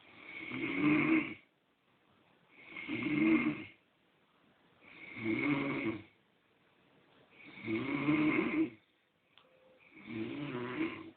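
A man snoring in his sleep: five snores, one about every two and a half seconds, each swelling and then fading, with quiet breaths between.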